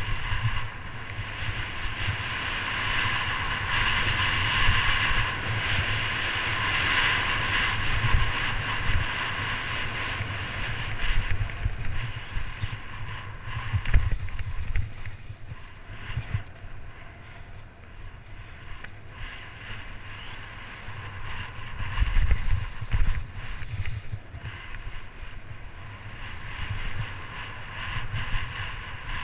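Skis scraping and chattering over firm, suncupped glacier snow during a fast run, with wind buffeting the microphone as a steady low rumble. Irregular thumps come as the skis hit the bumps, the hardest about halfway through and a cluster a little later.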